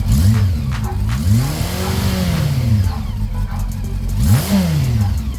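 Honda CB400 Super Four Spec 3's inline-four engine blipped from idle three times: a short rev at the start, a longer rise and fall in the middle, and another quick rev near the end. The engine has an intermittent tick that the owner suspects is a timing chain tensioner problem.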